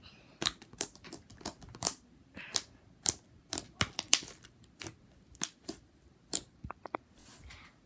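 Fluffy slime being poked and squeezed with the fingers, giving irregular sharp clicks and pops, a couple a second.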